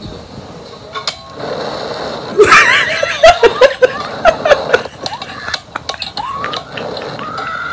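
A slingshot ride launching, with wind rushing over the ride camera's microphone, then high wavering screams and shrieking laughter, ending in one long held high scream.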